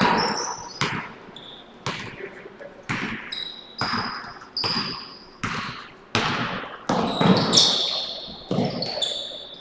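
Basketball dribbled on a hardwood gym floor, about one bounce a second, each bounce echoing through the large gym, with short high squeaks of sneakers on the court in between.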